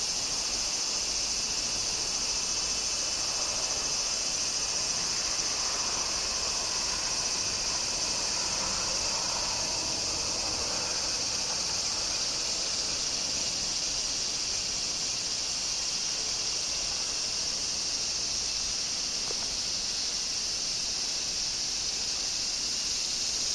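Steady, high-pitched chorus of insects, such as crickets or cicadas, that holds unbroken throughout.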